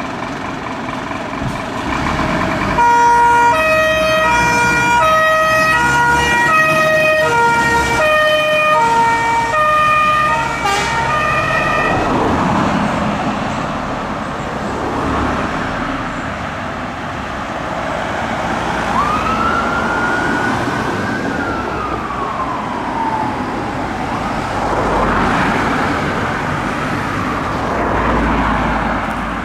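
Fire engine's old-style two-tone siren alternating between a high and a low note, starting about three seconds in and cutting off about eight seconds later, over the truck's diesel engine pulling away. Afterwards the engine and road noise carry on, with a fainter siren rising and falling in the distance.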